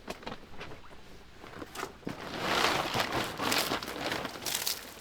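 Plastic tarp crinkling and rustling as it is handled: a few sharp crackles at first, then from about two seconds in a denser, louder crinkling.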